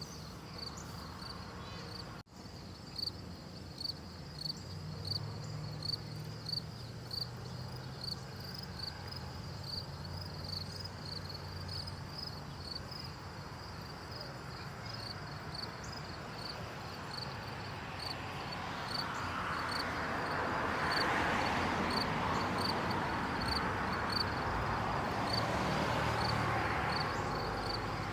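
Insects chirping in a steady, evenly spaced high-pitched rhythm, about one chirp a second. A broad rushing noise swells up past the middle and eases near the end.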